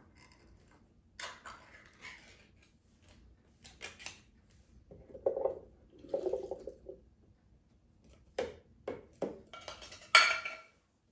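Canned chickpeas, with a little of their liquid, slide out of a metal can into a glass container, with scattered clinks and knocks of the can against the glass. There is a sharper clank about ten seconds in.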